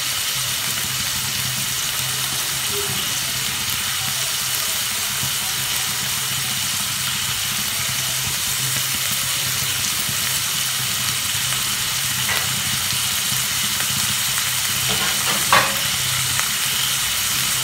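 Chopped capsicum, onion and ginger-garlic paste sizzling steadily in hot oil in a non-stick kadai, with a low steady hum underneath. A single sharp tap sounds near the end.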